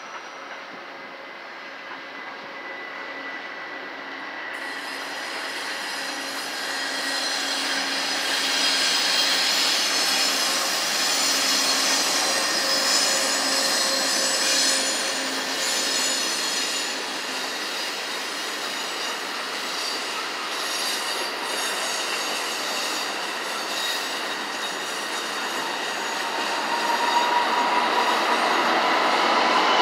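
Amtrak passenger train passing close by: its GE P42DC diesel locomotives come on, getting louder over the first ten seconds, then bilevel Superliner cars roll past. The steel wheels squeal steadily on the rails, and the sound swells again near the end.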